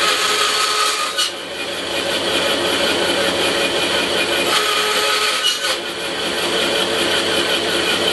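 Bandsaw running steadily, crosscutting thin maple strips into short lengths. The blade is heard going through the wood twice: for about a second at the start and again about four and a half seconds in.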